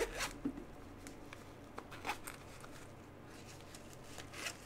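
Faint handling sounds: a few soft, scattered clicks and rustles of small objects being picked up and moved, with a slightly longer rustle near the end.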